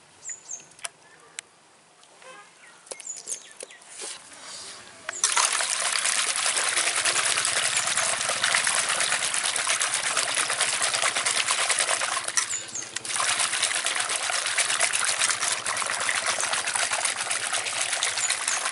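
Water pouring into a steel bowl of shelled snail meat as it is rinsed and rubbed by hand to wash off the slime. The pouring starts suddenly about five seconds in, dips briefly about two-thirds of the way through, then carries on. Before it there are only faint wet squelches and small splashes of the meat being handled.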